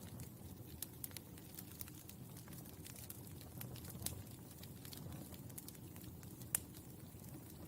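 Burning charcoal crackling: scattered sharp pops and ticks over a low steady rumble, with one louder pop about six and a half seconds in.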